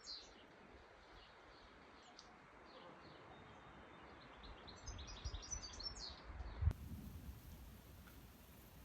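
Small birds chirping and twittering over a steady outdoor hiss, busiest about two-thirds of the way in, with low rumbles there. The sound then changes abruptly: the chirping stops and only a quieter steady hiss remains.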